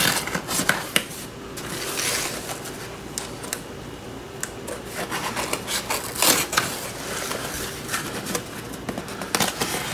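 Small folding knife slitting packing tape along a cardboard box's seams: scratchy cutting strokes mixed with scattered taps and rustles as the box is turned and handled.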